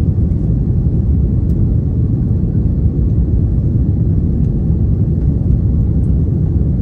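Airbus A330 cabin noise during the climb after takeoff: a steady low rumble of the engines and rushing air, heard from inside the cabin.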